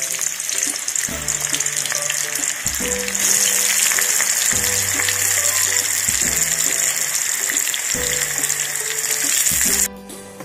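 Sliced onions sizzling as they fry in hot oil in a kadhai, growing louder a few seconds in and cutting off abruptly near the end.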